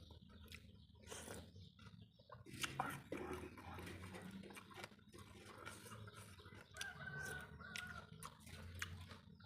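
Chickens clucking faintly, with a rooster's drawn-out crow about seven seconds in, among scattered light clicks.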